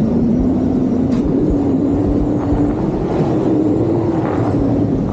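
Loud rush of wind over the microphone of a speed rider flying fast and low above a snow slope under a small paraglider wing, with a steady low hum that slowly rises in pitch.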